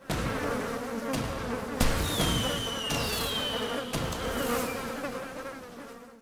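Fireworks going off: a steady hum and crackle throughout, sharp bangs about one, two and four seconds in, and two whistles falling in pitch in the middle, fading toward the end.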